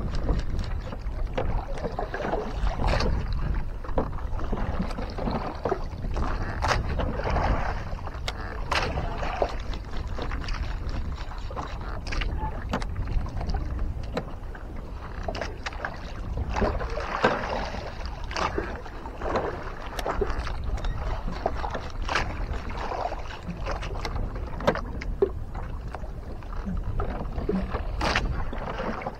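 Sea water lapping and splashing against the hull of a small wooden outrigger boat, over a steady low rumble, with scattered small knocks throughout.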